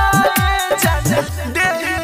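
Bhojpuri DJ-style dance music: a synth melody over deep electronic kick drums that drop in pitch, about three a second. A little past halfway the kicks give way to a steady pulsing bass line.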